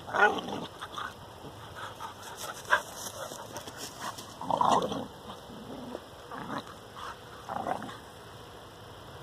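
Two young Heidewachtel–English Pointer cross dogs play-fighting, giving short vocal bursts every second or two, loudest about half a second in and again around five seconds in.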